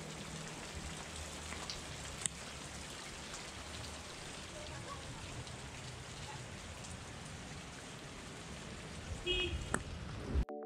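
Water dripping and trickling down a wet mossy rock face: a steady patter with scattered drops ticking, one sharper tick about two seconds in. Music with a beat cuts in right at the end.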